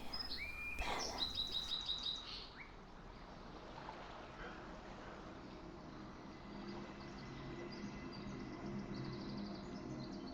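Birdsong chirps and a quick trill in the first couple of seconds, then soft relaxation music fading in as sustained low tones, with faint bird chirps over it.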